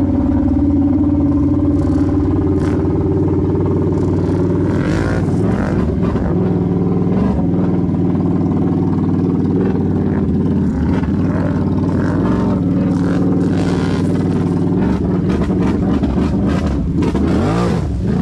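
Can-Am Renegade XMR 1000 ATV's V-twin engine, fitted with a megaphone exhaust, running hard and steady, with the revs rising and falling several times. Scattered knocks and clatter sound over it.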